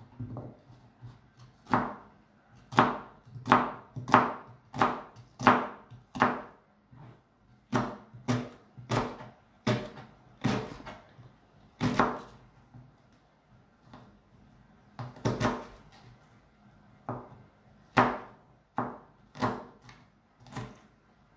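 Kitchen knife chopping an onion on a plastic cutting board: sharp knocks of the blade on the board, roughly one or two a second in uneven runs, with a short pause about two-thirds of the way through.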